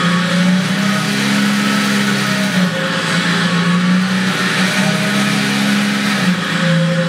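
1:6 scale Armortek Sherman model tank running on blocks: a loud, steady engine-like hum with its drive running, the pitch dipping slightly a couple of times.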